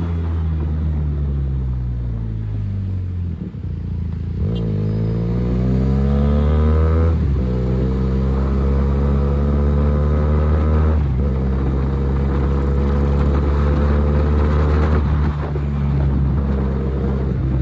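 QJMotor SRK 400 motorcycle engine and exhaust while riding. The engine note falls as the bike slows and briefly drops away about four seconds in. It then climbs under acceleration, with gear changes about seven and eleven seconds in, and holds fairly steady at cruising speed.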